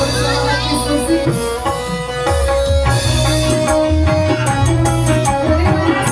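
Live band music with a keyboard melody over a steady drum beat, with the hand drum giving it a tabla-like sound.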